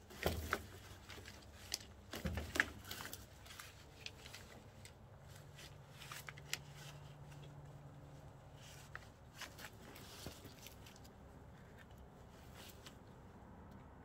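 Faint crunching and rustling of a person moving about on snow, in two short clusters in the first three seconds, then a few scattered soft crunches.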